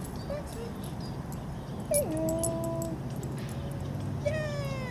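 Working cocker spaniel whining: a steady whine lasting about a second, right after a sharp click about two seconds in, then a shorter falling whine near the end.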